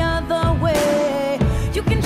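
Pop song playing: a sung melody with held notes over a steady drum beat.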